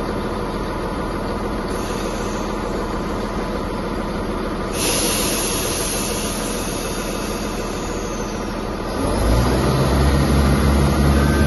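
Diesel multiple unit's underfloor engine idling while the train stands, with a hiss starting about halfway through. About three quarters of the way in the engine opens up into a louder, deeper drone as the train starts to move off.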